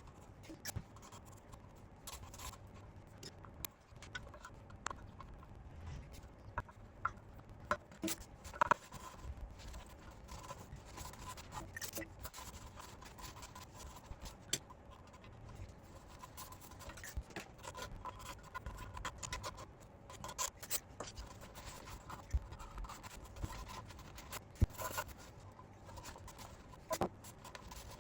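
Light scratching and scraping with many scattered small clicks and taps, the sound of hands working with tools and small parts, over a low steady hum.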